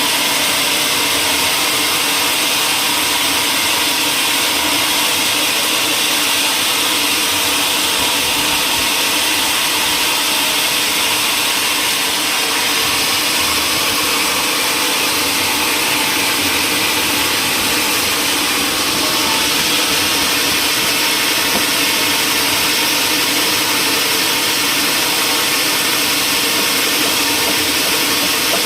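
Woodworking machinery running steadily: a constant loud hiss over a low hum, unchanging throughout.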